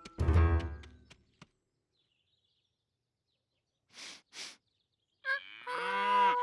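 Cartoon soundtrack: a music cue ends on a low thud that fades out within the first second and a half. After a silence come two short breathy puffs in quick succession, then a held musical chord that starts near the end.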